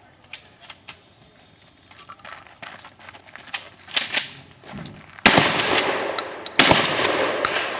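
Two loud shotgun blasts about a second and a half apart in the second half, each followed by a long fading echo, after a scatter of fainter, sharper gunshots.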